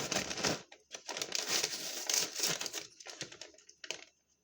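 Plastic packaging being handled and crinkled in two long spells, with a few last crackles before it stops near the end.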